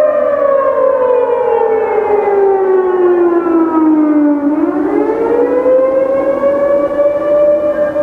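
Mechanical outdoor warning siren, the Federal Enterprises Thunderbolt 1000, wailing on the attack signal. Its pitch glides slowly down for about four seconds, then climbs back up and levels off.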